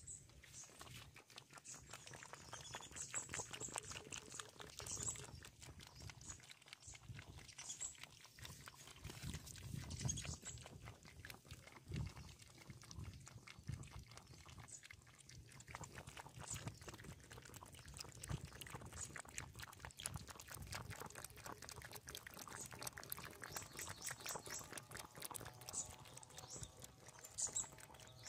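Two cats lapping milk from a steel bowl: a fast, faint run of licking ticks.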